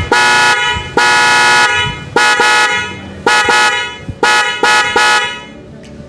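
Aftermarket car horn wired up for a test, sounding two honks of about half a second, then short toots in groups of two and three.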